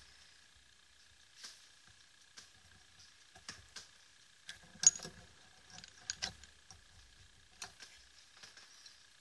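Faint, scattered small clicks and taps of metal tweezers handling a tiny switch-LED board at a flashlight's tail switch. The loudest click comes about five seconds in and a quick pair just after six, over a faint steady high tone.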